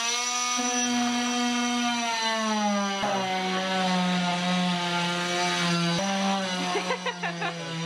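Ryobi cordless oscillating multi-tool running with a steady whine while its blade cuts a hole in the particleboard side panel of a sink vanity. The pitch sags about two seconds in as the blade bites, and the sound dips briefly twice as the cut goes on.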